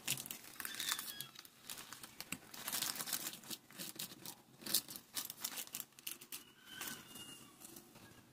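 Plastic wrapper crinkling and rustling as soft butter is squeezed out of it into a ceramic bowl, with many irregular light clicks.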